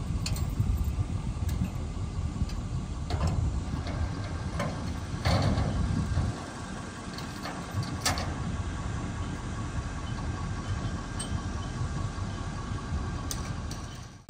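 An engine idling with a steady low rumble, with a few sharp knocks over it.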